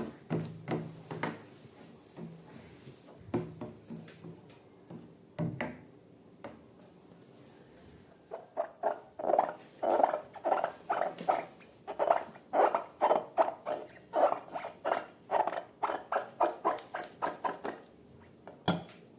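Slime being squished and worked by hand. There are a few scattered soft sounds at first, then from about eight seconds in a long run of short squelches, two or three a second.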